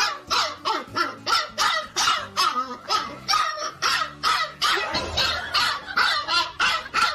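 A dog barking rapidly and repeatedly, about three or four short barks a second without a break.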